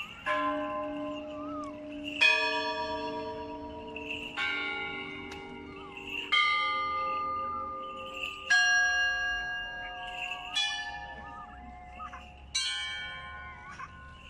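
Bells struck one at a time, seven strikes about two seconds apart, each a different note left to ring and fade.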